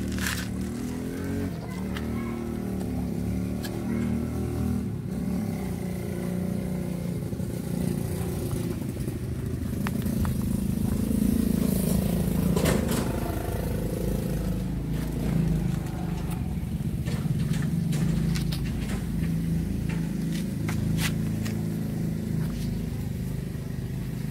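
A motor engine running steadily, a low hum that swells and shifts in pitch for a few seconds around the middle, with scattered sharp clicks over it.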